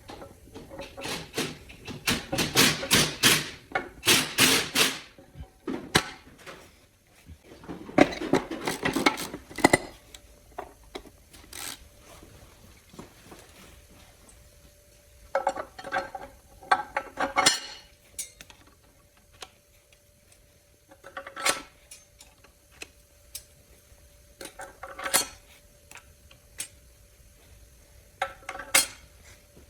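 Metal parts and hand tools clinking and clanking during the teardown of a GM GF6 automatic transmission. There are dense runs of clatter a couple of seconds in and again around eight to ten seconds, then scattered single knocks, over a faint steady hum.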